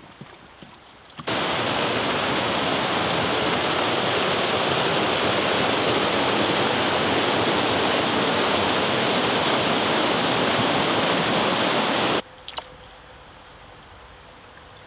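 Waterfall pouring over a stone wall into still water: a loud, steady rushing that starts abruptly about a second in and cuts off near the end. A couple of faint clicks follow.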